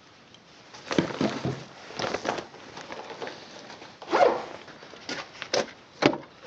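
Handling noises: rustling of a woven plastic bag and knocks of small pots being packed into it, with several sharp clicks at irregular intervals.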